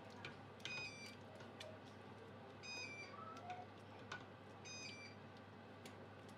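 Faint stirring of thick sauce in a stainless steel pot, with a few light clicks and soft plops. Three identical faint electronic beeps come about two seconds apart.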